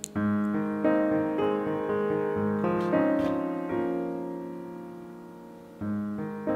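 Background piano music: sustained chords that ring and slowly fade, with a new chord coming in near the end.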